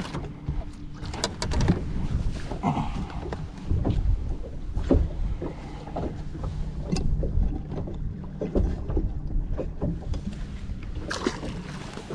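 Wind and lapping water around a bass boat sitting still, with scattered light knocks and clicks from gear being handled on the deck.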